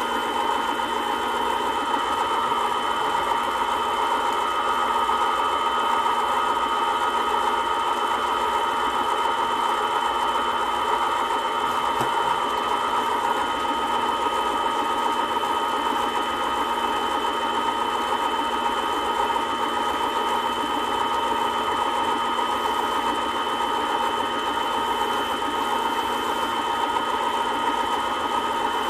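Small lathe motor spinning a ring on a mandrel at a constant speed while the ring is sanded and polished by hand; a steady whine that does not change in pitch or level.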